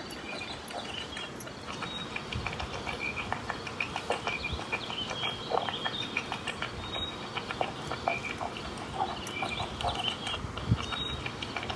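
Pet rabbit chewing salad greens: a rapid, irregular run of small crunches and clicks, with faint high chirps in the background.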